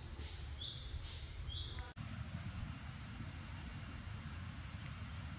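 Forest ambience: a bird gives a short call about once a second, then an abrupt cut about two seconds in gives way to steady high-pitched insect buzzing, over a low rumble.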